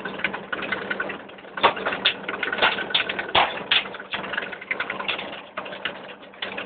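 A wheeled rake machine at work: an engine running with a steady hum, under irregular mechanical clattering and sharp knocks from the rake.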